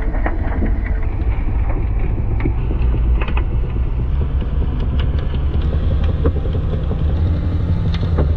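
Honda CBR600 four-cylinder motorcycle engine of a giant home-built blender running steadily and driving the spinning blades, a continuous low drone. Sharp clicks scattered throughout as bits of debris strike the blender's walls.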